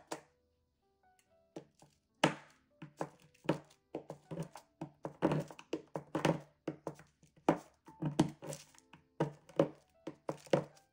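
Kitchen knife chopping a bar of dark chocolate on a parchment-lined wooden cutting board: quick, irregular knife strikes, about two to three a second, starting about two seconds in. Soft background music plays underneath.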